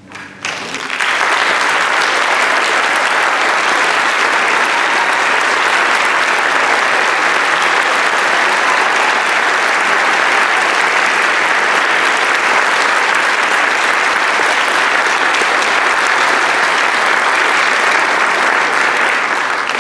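Audience applause for an orchestra's finished piece, building within about a second to dense, steady clapping.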